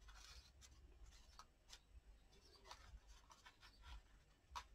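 Near silence with faint handling of paper and cardstock: a few light taps and rustles as card pieces are set in place, the clearest tap near the end.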